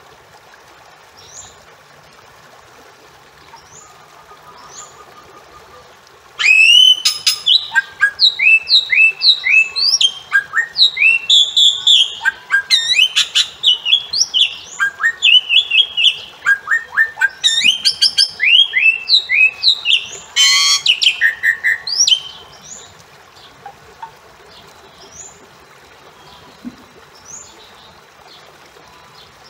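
Bali myna calling: after a few faint chirps, a loud run of about fifteen seconds of rapid, short whistled notes sliding up and down, with a harsh rattling note near its end, then faint chirps again. A faint steady hiss lies underneath.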